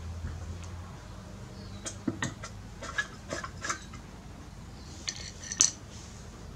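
Light metallic clinks and ticks as the piston is pushed down by hand into the cylinder bore of a Briggs & Stratton engine: a quick run of taps about two seconds in and another short cluster near the end, the last tick the loudest.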